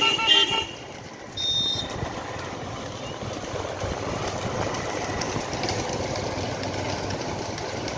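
A vehicle horn tooting in quick repeated pulses stops about half a second in, and a short high beep sounds around a second and a half in. After that a motor vehicle's engine runs steadily, with road noise.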